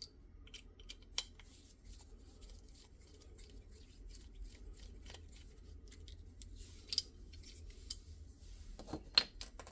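Scattered small clicks and light handling of a torque driver and small screws while an optic mounting plate is set up, with a faint low hum underneath.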